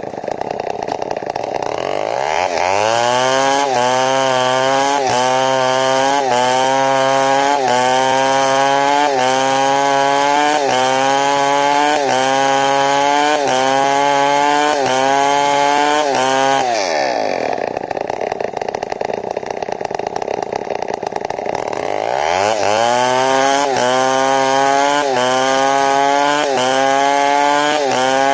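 Large New West 070 chainsaw cutting timber at full throttle, its engine pitch held down by the load and pulsing in a regular rise and dip under a second apart. About 17 seconds in it frees up and revs higher for some five seconds, then drops back into the cut.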